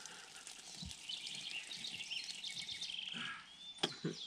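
Small birds chirping in short, repeated trills, with a single sharp click near the end.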